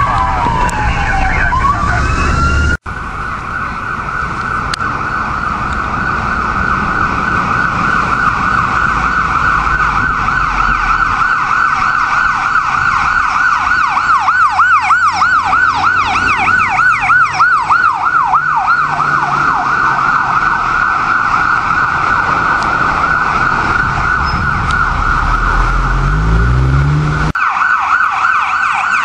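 Ambulance siren wailing, switching to a fast yelp for a few seconds about halfway through, then back to the slow wail. A vehicle engine revs up near the end.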